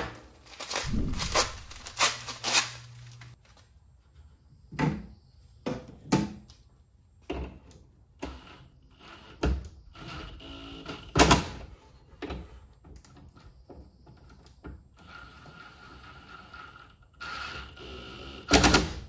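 Scattered clicks and knocks of gloved hands and tools on metal terminal hardware. A plastic bag rustles in the first few seconds, and a cordless drill-driver runs steadily for a few seconds near the end as the battery cable lugs are fastened.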